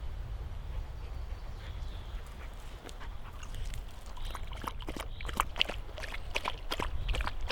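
Wind buffeting the microphone as a steady low rumble, with footsteps on the trail starting about two seconds in and growing more frequent in the second half.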